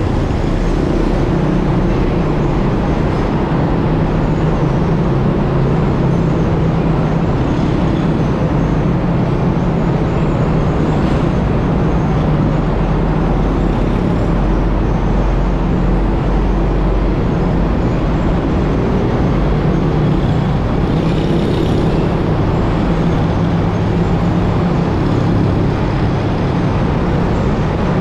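Steady drone of motor traffic inside a road tunnel: a box truck and motorbikes running close together, heard from a scooter following them, with a strong low hum that holds steady throughout.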